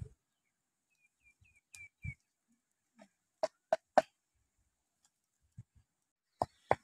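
Pestle pounding in a small clay pot: three sharp knocks in quick succession about halfway through, then two more near the end as a steady pounding rhythm of about three strokes a second begins.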